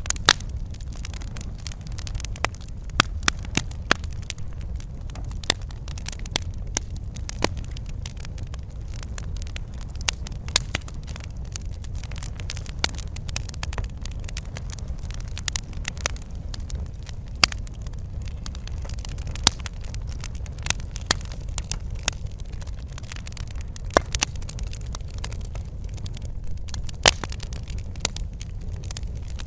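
Wood fire crackling in a fireplace: a steady low rumble of burning with frequent sharp irregular pops and snaps.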